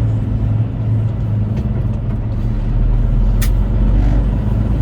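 Semi-truck's diesel engine running steadily at highway speed with tyre and road noise, heard from inside the cab. There is a single sharp click about three and a half seconds in.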